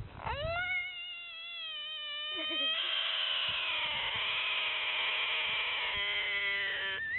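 An animal's long, drawn-out call. It swoops up in pitch at the start, is held for several seconds, and sags slowly in pitch toward the end.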